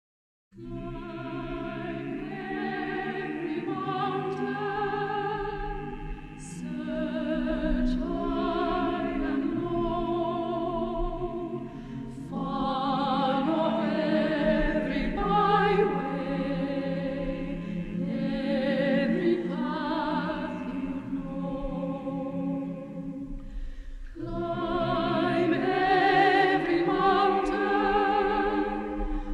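Choir singing in a classical, operatic style, held notes with vibrato, starting after a brief silence and swelling louder in places.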